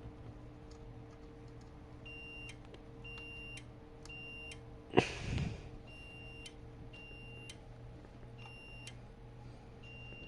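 Simplex 4903 fire-alarm appliance sounding faint, high electronic beeps about half a second long, grouped with pauses between the groups: its coded pattern rather than continuous. About five seconds in there is one loud knock, with a low hum underneath throughout.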